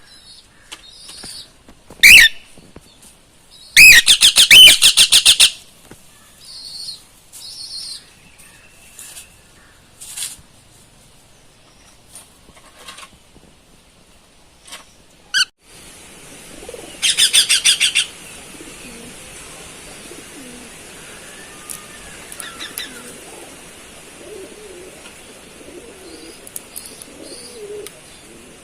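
Cockatiel calling: a few loud, sharp calls and two rapid runs of repeated chirps, with softer chirps in between.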